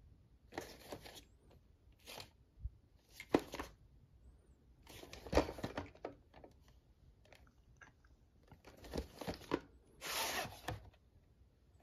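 A cardboard VHS sleeve being handled and turned over in the hand, giving short scraping, crinkling rubs a second or two apart. A longer, louder scrape comes near the end.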